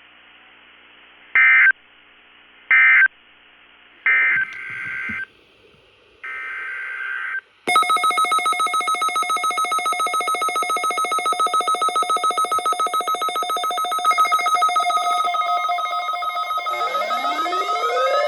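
Three short, identical digital data bursts over NOAA Weather Radio, about a second and a half apart: the SAME end-of-message code that closes a weekly alarm test. About 7.7 s in, the audio cuts to a louder electronic sound, several steady tones pulsing rapidly like a ringtone, with rising glides near the end.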